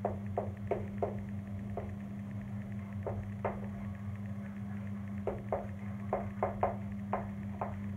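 Chalk tapping and scratching on a blackboard as words are written by hand, with irregular short clicks bunched in the first second and again in the last few seconds, over a steady low electrical hum.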